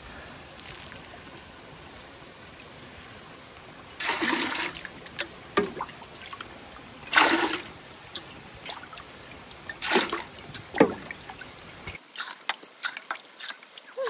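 Water poured from a bowl into a hanging copper bucket, splashing in short surges a few seconds apart. Near the end come quick splashes and drips of water spilling into the shallow tray beneath.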